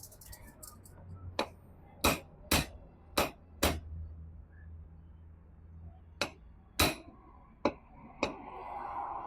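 About nine sharp hammer blows on metal, a run of five and then, after a pause of a couple of seconds, four more: the new steering-head cone set races of a Hero Splendor being knocked into place in the head tube.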